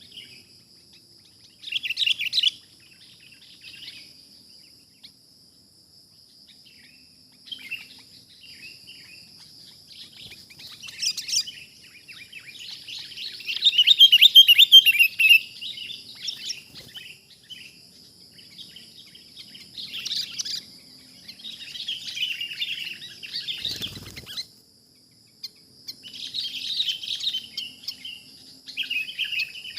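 Sooty-headed bulbuls (kutilang) calling in repeated bursts of bubbly chattering, loudest about halfway through, over a steady high-pitched tone. A single sharp knock comes late on.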